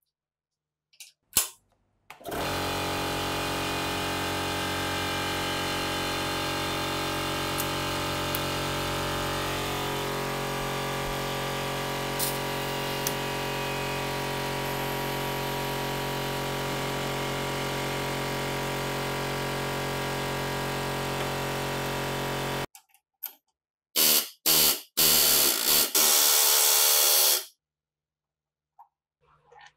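A couple of clicks, then an electric power tool runs at a steady pitch for about twenty seconds, its tone shifting slightly about halfway through. After a short pause come several short, louder bursts of a harsher noise.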